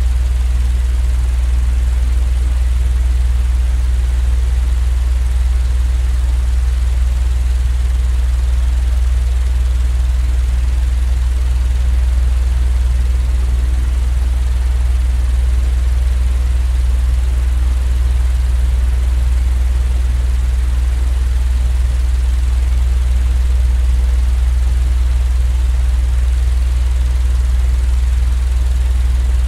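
Steady, unchanging low rumbling drone with a faint hiss above it, a continuous noise track for sleep.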